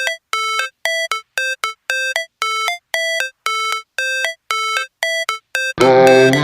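Background music: a simple electronic synthesizer melody of short, separate beeping notes, about three a second. Near the end, a fuller, louder music track comes in.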